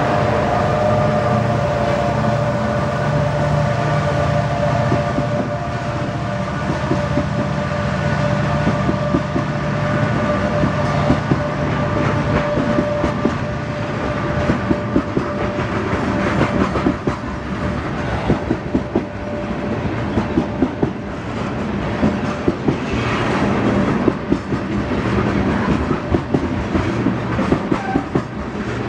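EMD SD70MAC diesel-electric locomotive passing close by, its engine drone fading over the first several seconds. Then coal cars roll past, their wheels clicking and knocking over the rail joints.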